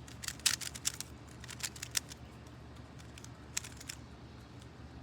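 Plastic Rubik's cube being twisted by hand in quick, irregular clicks, with a busy run in the first two seconds and a few more clicks later.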